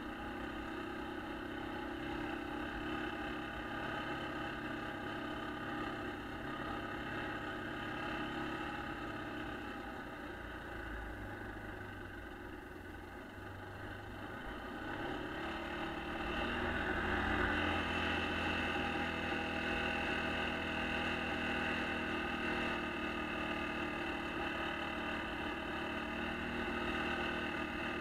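1996 Yamaha Kodiak ATV's single-cylinder four-stroke engine running steadily while riding on snow. It eases off a little around the middle, then runs louder again from a little past halfway.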